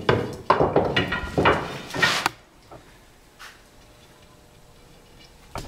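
Wooden take-down longbow pieces handled and set down on a workbench: a quick run of knocks and clicks for about two seconds, then a few faint ticks and one sharp click near the end.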